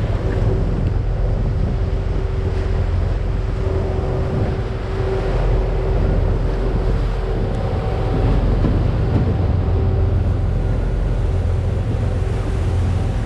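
A party boat's engines running steadily, a deep hum with a faint steady whine above it, with wind buffeting the microphone and water rushing past the hull.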